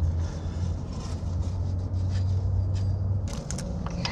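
Steady low rumble of a vehicle engine running nearby, dropping away about three seconds in, with a few light metallic clicks of parts being handled under the truck.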